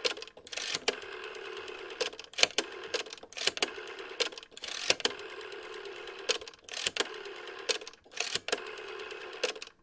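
Rotary telephone dial being dialled digit after digit: each turn of the finger wheel clicks, then the dial spins back with a steady whirr and a run of ticking pulses. It stops suddenly near the end.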